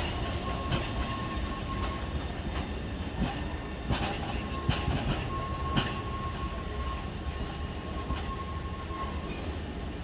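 Taipei Metro train running through depot track and points: a steady rumble with sharp clicks as the wheels cross rail joints and switches, and a thin steady whine that comes and goes.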